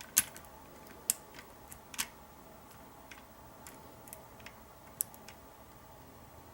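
Lock pick and tension wrench clicking and ticking in the cylinder of a Kwikset Smartkey deadbolt as the sliders are worked between gates: irregular small ticks with a few sharper clicks, three in the first two seconds and one about five seconds in.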